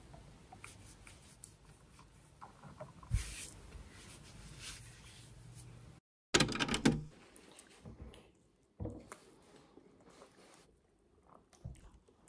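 Knocks and clatter of objects being handled, over a faint low room hum. The sound drops out for a moment about halfway through, then a louder clatter of several quick knocks follows, and a few single knocks come after it.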